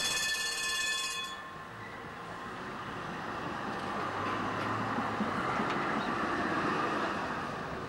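Articulated street tram passing close by, its wheels and running gear on the rails swelling to the loudest point about four to seven seconds in as the cars go past, then easing off. It opens with a high ringing tone lasting about a second.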